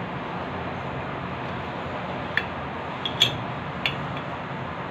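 Metal tongs clicking against the dishes four times in quick succession about two to four seconds in, over a steady background hiss.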